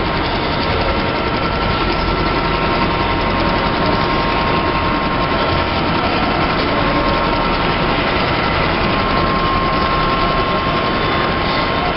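Edge pre-folding and stitching machine for woven big-bag (FIBC) fabric running steadily: a dense, even mechanical noise from its industrial sewing heads and drives, with a thin steady whine.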